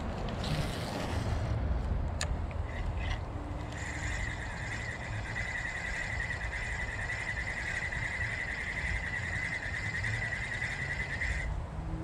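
Spinning reel being cranked to retrieve a lure: a steady whir that starts about four seconds in and stops shortly before the end. Earlier come a couple of sharp clicks and a short hiss, with a low rumble of wind or handling underneath.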